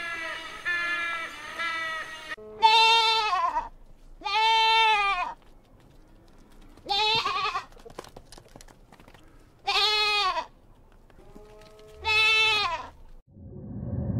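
Domestic goat bleating five times, each bleat long and wavering, a couple of seconds apart. A repeated pulsing call runs for about the first two seconds before the bleats begin.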